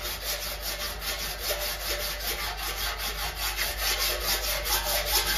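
Body file rasping across a classic Mini's front wing in quick, even strokes. The file is checking the hammered-out dent: the metal it skims marks the high spots, and what it misses shows the lows.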